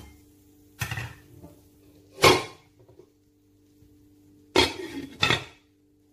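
Metal kitchenware clanking against a cooking pot: five sharp knocks, each with a short ring, the loudest about two seconds in. A steady low hum runs underneath.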